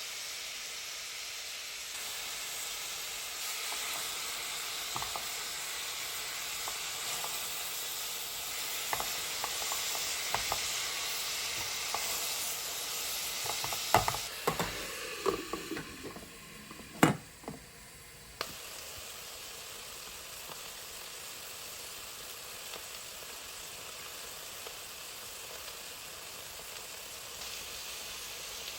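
Food sizzling in a hot pan, with a steady hiss. Utensils clink and knock against the pan through the middle, with two sharp knocks the loudest. The sizzling drops away briefly after these and then resumes.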